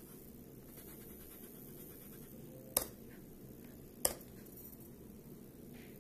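Fujitsu E557 laptop making a faint, high hiss that comes and goes, a fault the owner puts down to the CPU or SSD. Two sharp clicks stand out, about three seconds in and again a second later.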